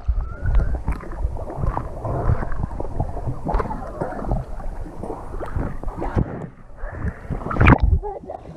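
Lake water sloshing and gurgling against an action camera's housing as it moves through the water and breaks the surface during snorkeling, with a louder splash near the end.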